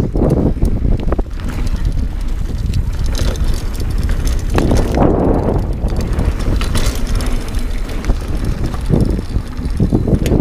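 Hardtail 29er mountain bike riding fast down a dirt trail: tyre noise and clattering of the bike over bumps, with wind rumbling on the camera microphone. Scattered knocks, the sharpest about eight seconds in.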